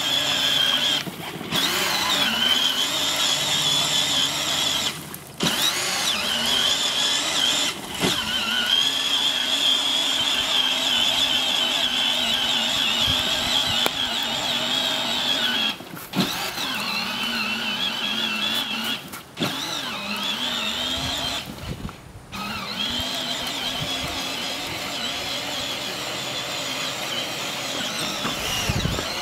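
Electric drive motors and gearbox of a battery-powered ride-on Barbie Jeep toy car running as it drives, a steady high whine that wavers in pitch, broken by several short gaps.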